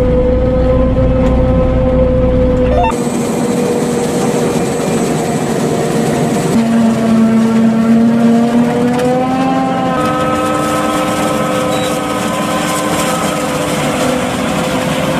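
John Deere 8400i self-propelled forage harvester running under load while chopping maize, a steady, loud machine whine over a rushing noise, with a tractor running alongside. The pitch and mix change abruptly about 3, 6½ and 10 seconds in.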